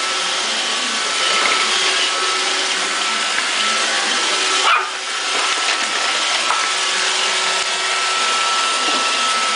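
An iRobot Roomba Pet robot vacuum runs with a steady hiss and a thin whine. A Yorkshire terrier barks at it, with one louder bark about halfway through.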